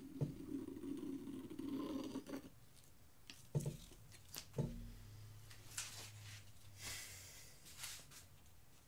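Faint handling noises: a few sharp knocks, then soft rustles. A low hum runs through the first two seconds or so, then stops.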